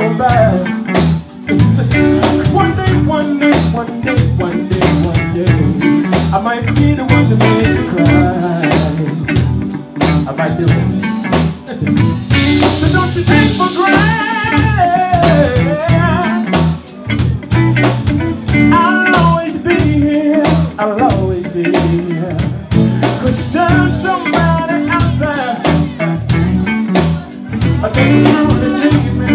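Live band playing a blues groove: electric guitar lines over bass guitar and a drum kit.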